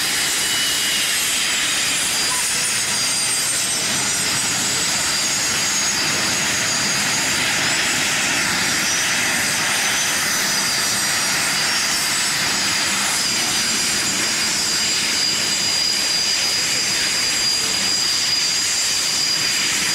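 Alpha Jet trainers taxiing, their twin Larzac turbofan engines giving a steady high-pitched whine over a continuous rush of jet noise.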